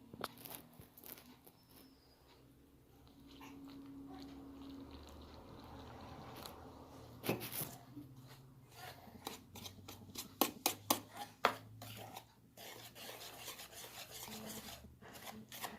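Faint, scattered clicks and taps of things being handled in a kitchen, over a low steady hum; the taps come thickest about halfway through.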